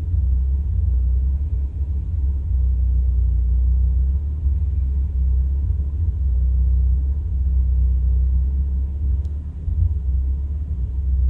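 1985 Toyota Celica's 22R-E four-cylinder engine idling rough, a low rumble that wavers unevenly, heard muffled through the closed doors and windows.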